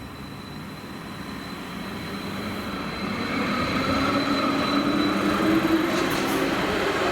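Electric rail vehicle approaching. Its wheel rumble and motor hum grow louder over the first three seconds, rising slightly in pitch, then stay loud and steady.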